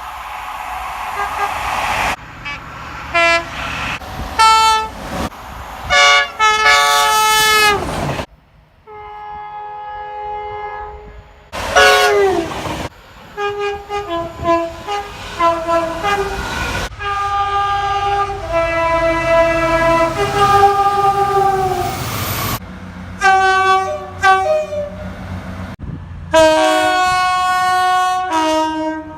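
British train horns in a string of separate clips with abrupt cuts between them. Loud two-tone horn blasts, some switching back and forth between a high and a low note several times, some sliding down in pitch as they die away, with the rumble of the train under some clips.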